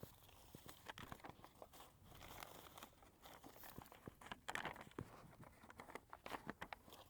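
Faint, scattered crinkling and crackling of a paper notice being handled.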